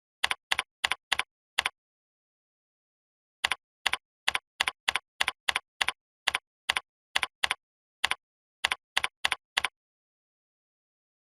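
Computer keyboard keystrokes: a short run of about six key presses, a pause of nearly two seconds, then a longer run of about eighteen at an uneven typing pace that stops near the end, with dead silence between the clicks.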